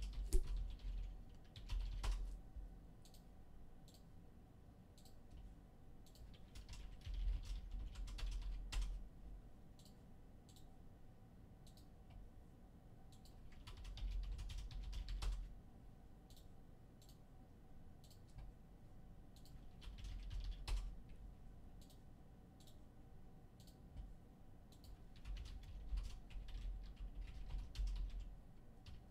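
Computer keyboard typing, clicking keystrokes in about five short spells separated by pauses of several seconds.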